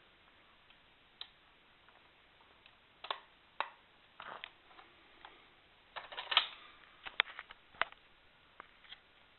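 Handling noise: irregular small clicks and taps, most of them bunched together about six to eight seconds in.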